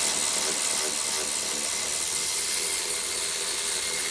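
Cordless electric ratchet running steadily as it spins out a bolt, then cutting off suddenly just after the four-second mark.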